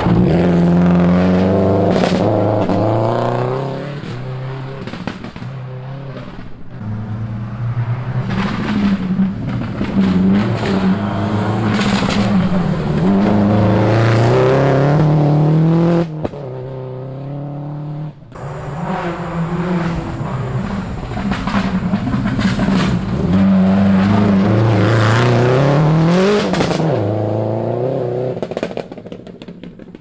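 Rally cars at full throttle passing close on a loose gravel stage, one after another, engines revving up and dropping back with each gear change, tyres scrabbling through the gravel. The sound breaks off abruptly a few times between passes.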